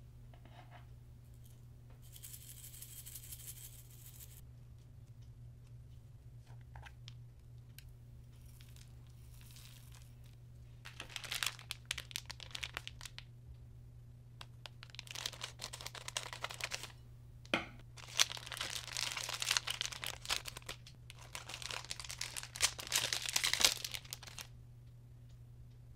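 Plastic wrapper of a packet of Japanese colour paper clay (kami nendo) being crinkled and torn open in several bursts over the second half, with one sharp click about halfway through the bursts.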